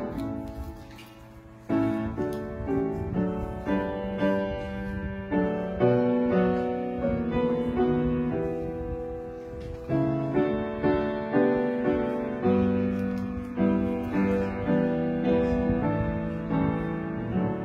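Piano playing a slow communion hymn, struck chords and melody notes fading between strokes. A short lull about a second in, then the tune picks up again.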